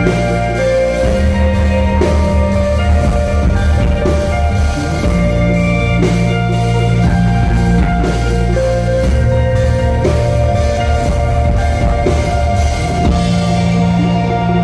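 Instrumental rock music: sustained guitars over a drum kit and a changing bass line, at a steady loud level.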